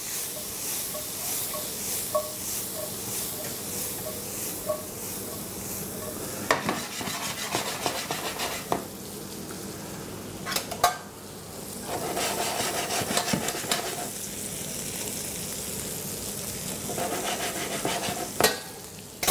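Vegetables sizzling in a stainless-steel frying pan while being stir-fried, tossed and stirred with a spoon, with metal scraping on the pan and a few sharp clanks.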